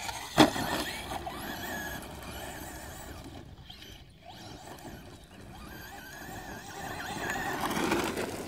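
Traxxas Slash RC short-course truck's motor and drivetrain whining, rising and falling with the throttle. A sharp thump about half a second in as it lands a jump, and the whine grows louder near the end as the truck passes close.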